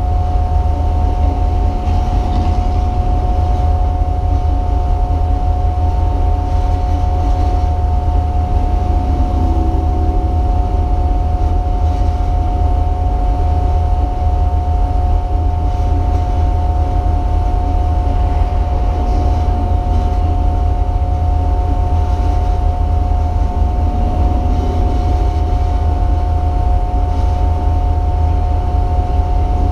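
Race car interior noise heard from inside the cabin: a loud, steady engine and road drone with a heavy low rumble, its pitch holding level rather than rising and falling.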